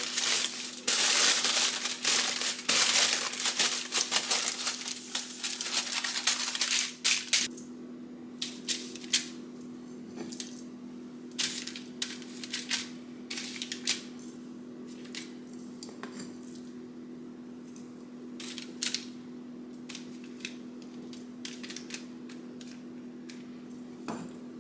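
Aluminum foil being pulled off, crinkled and pressed into an air fryer tray: dense crackling for the first seven seconds or so, then scattered crinkles and light taps. A steady low hum sits underneath throughout.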